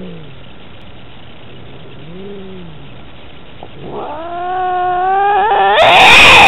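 Domestic cats caterwauling in a fight standoff: low drawn-out growling moans, then a long yowl that rises in pitch and grows steadily louder, breaking into a harsh scream near the end.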